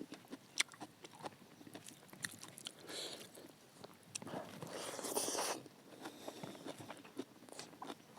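A person eating close to the microphone: wet chewing and biting with scattered small clicks and crunches, and a couple of louder mouthfuls about three and five seconds in.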